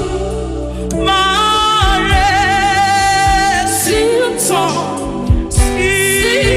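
Gospel worship song: singing with vibrato over a band with bass and drums, in a steady beat.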